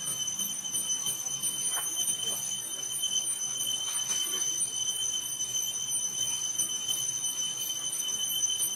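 Steady, high-pitched insect drone, typical of cicadas, holding two even tones without a break, with a couple of faint short sounds about two and four seconds in.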